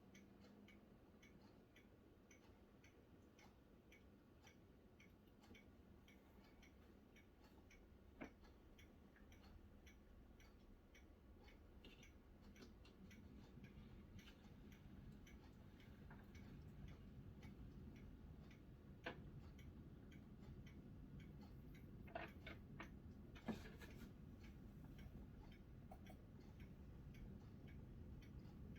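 Faint, even ticking over a low rumble that slowly swells, broken by a few sharp clicks.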